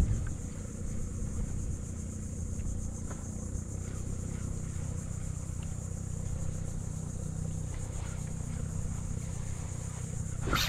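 A steady low motor hum, like an engine running at a distance, with a faint hiss over it; a sharp knock comes right at the end.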